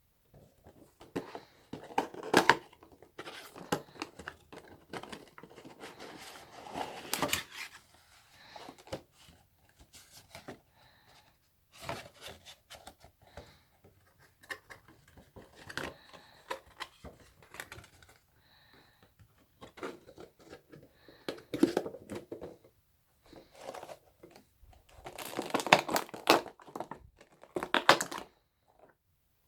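Funko Pop box packaging being handled and opened: irregular crinkling, rustling and tearing of cardboard and plastic with scattered clicks, in bursts that are loudest near the end.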